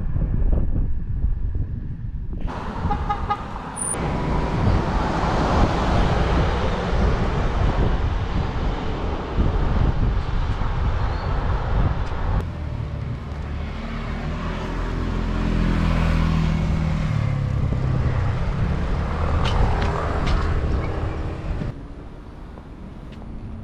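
Street traffic with cars passing on a town road. A short car-horn toot comes about three seconds in, and a vehicle passes close near the middle, its engine pitch rising and then falling.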